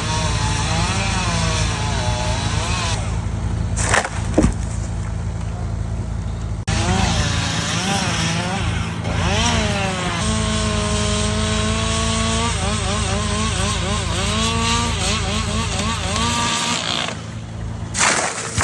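Chainsaw revving up and down as it cuts, over the steady drone of a running engine.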